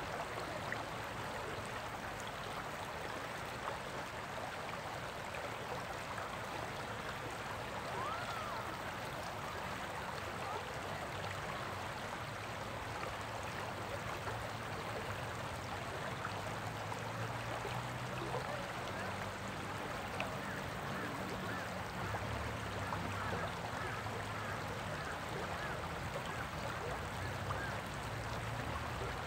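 Water of a shallow river riffle running over rocks, a steady continuous burble.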